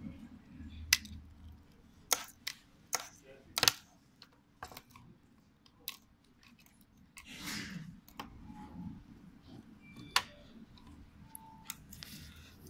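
Irregular sharp plastic clicks and taps from handling and prying apart a DPVR E3 VR headset's plastic headband and its cable parts, with a brief rustle about seven seconds in.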